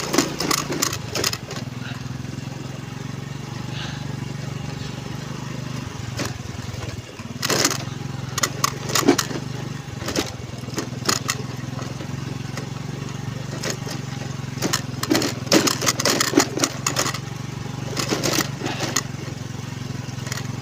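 Honda Navi's small single-cylinder engine running steadily while riding along a rough track, with bursts of rattling and knocking about a third of the way in and again through most of the second half.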